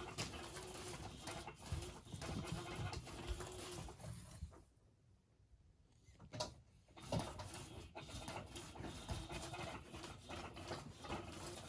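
Cats moving about a small room: irregular soft rustling and light patter, going almost quiet for a second or two near the middle.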